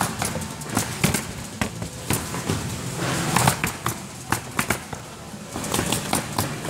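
Pneumatic roofing nail guns firing as asphalt shingles are nailed down: sharp shots in quick, irregular runs, often several a second, with a short lull past the middle.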